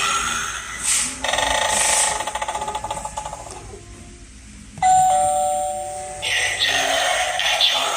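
Halloween animated eyeball doorbell prop playing its recorded sounds through its small speaker. A two-tone ding-dong chime comes in sharply about five seconds in and fades, with dense scary sound effects before and after it.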